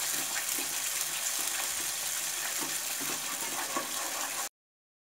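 Spinach gravy with masala sizzling in oil in a non-stick kadhai, with soft scrapes of a spatula stirring it. The sound cuts off abruptly near the end.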